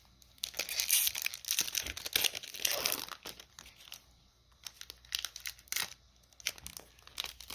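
Magic: The Gathering booster pack torn open, its foil wrapper crinkling for about three seconds, then a few scattered light clicks of the cards being handled.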